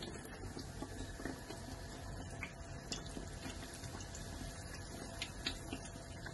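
Breaded bread pocket frying in hot oil: a steady sizzle with scattered small crackles and pops.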